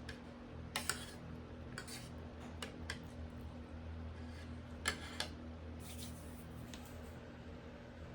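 Scattered light clicks and taps, about nine of them at uneven intervals with the sharpest near one second and five seconds in, over a steady low electrical hum.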